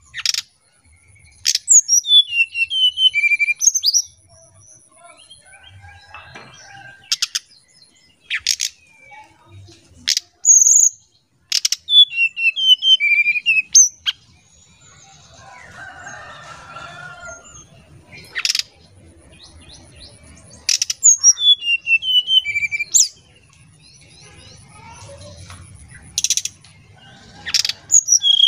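Brown-chested jungle flycatcher singing its fluty song. Phrases of rapidly falling whistled notes come about every nine seconds, with short sharp call notes in between.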